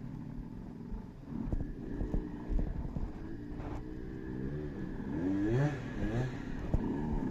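Off-road trail motorcycle engines revving up and down unevenly, the pitch rising and falling again and again over a low rumble.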